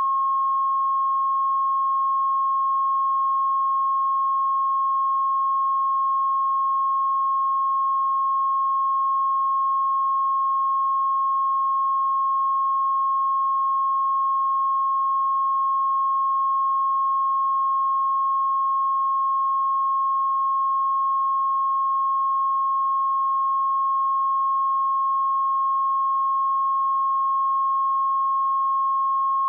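Broadcast line-up tone: a steady, unbroken test tone at one pitch, laid under colour bars at the head of a videotape as the audio level reference.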